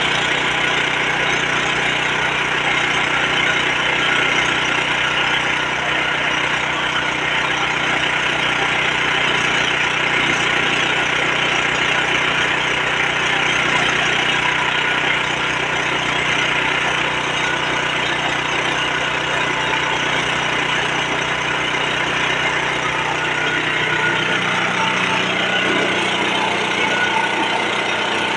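Mini rice milling machine running steadily, with a dense mechanical whirr and hum; its low hum shifts in pitch near the end.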